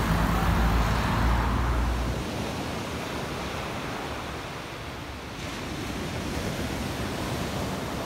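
Road traffic rumbling for the first two seconds or so, then the steady rushing hiss of sea surf breaking on a pebble beach.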